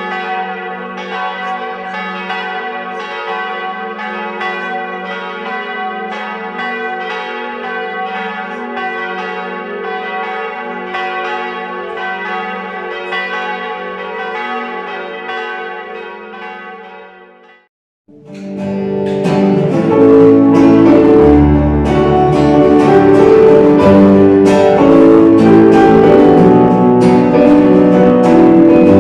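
Church bells ringing together, several overlapping bells in a steady peal, cut off abruptly a little past halfway. After a brief silence a band starts playing, with guitars and a bass.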